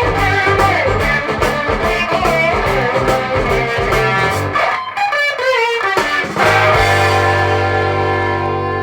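Recorded blues-rock music: distorted electric guitar over bass and drums, a short guitar lick with bent notes about five seconds in, then the band ending on a held chord that rings and starts to fade.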